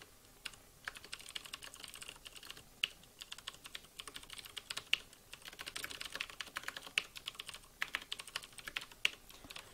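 Typing on a computer keyboard: quick, irregular runs of keystroke clicks, sparse for the first second and then denser, as code is entered into a text editor.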